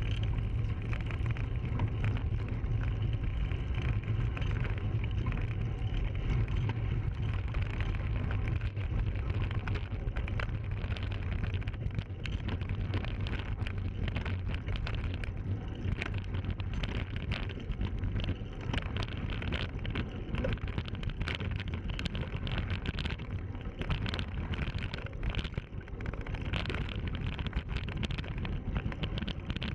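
Bicycle riding heard from a handlebar-mounted camera: steady wind buffeting on the microphone and tyres rolling, with frequent clicks and rattles from the bike jolting over the trail, busier from about ten seconds in.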